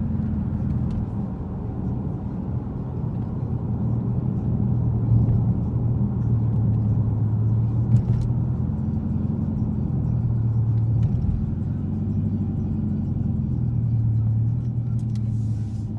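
In-cabin sound of a 2013 Chrysler 300C's 5.7 L Hemi V8 through a straight-piped exhaust (gutted cats, no resonators, no mufflers): a low, steady exhaust note that swells and eases slightly as the car cruises and slows down.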